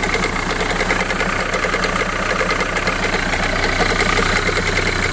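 Renault Kangoo engine idling cold with a fast, even rattle from the engine bay, a knocking that comes only on cold starts; it is taken for a worn alternator overrunning clutch (pulley).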